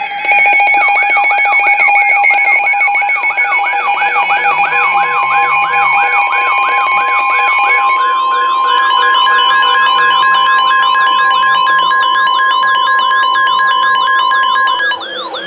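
Emergency weather alert signal: a siren-like warbling tone sweeping up and down several times a second, layered with steady alarm tones. About five seconds in, a single long steady tone joins and holds for about ten seconds, which fits NOAA Weather Radio's warning alarm tone. The tones drop in level just before the end.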